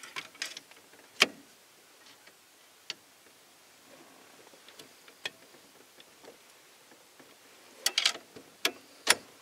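Scattered sharp clicks and light knocks of small steering-column parts and a screwdriver being worked on a Ford F-150 column during reassembly, with a quick cluster of clicks near the end. The parts are not going together easily.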